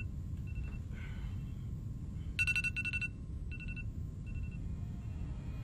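iPhone alarm going off: groups of short, high, two-pitched electronic beeps repeating about once a second, with a steady low rumble underneath.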